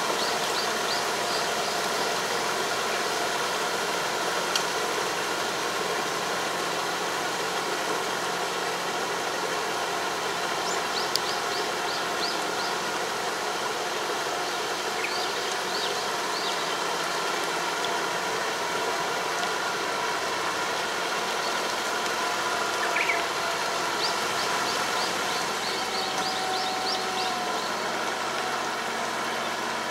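Farm tractor's diesel engine running steadily while it pulls a Kobashi 3 m puddling harrow through a flooded rice paddy. Short runs of high chirps come in several times over the engine.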